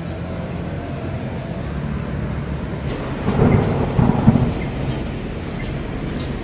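Street traffic noise: a steady low rumble, swelling louder for about a second in the middle as a vehicle passes.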